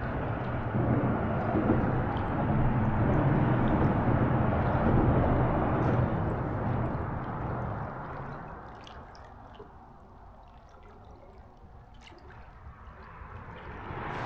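Fishing boat under way on the water: a motor hum with water rushing and gurgling along the hull. It swells for several seconds, then fades to a low level before rising again near the end.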